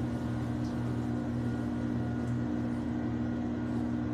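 Electric pottery wheel running with a steady motor hum.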